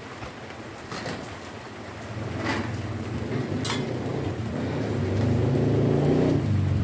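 Beef steak sizzling on a ribbed grill pan over a tabletop gas stove, a steady crackle that grows louder about two seconds in as the meat is turned, with a few sharp clicks of metal tongs against the pan.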